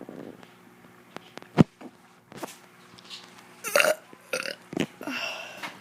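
A child burping several times in quick succession, the longest burp about two thirds of the way through. A sharp click about a second and a half in is the loudest sound.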